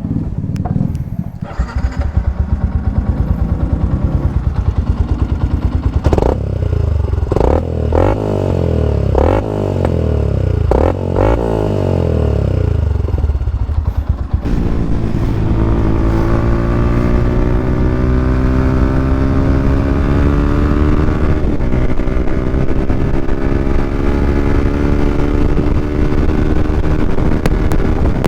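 Yamaha Sniper 150's single-cylinder four-stroke engine through an open EXOS R6 exhaust pipe with no silencer. It idles unevenly with several quick throttle blips in the first half, then about halfway through settles into a steady, louder run whose pitch climbs slowly.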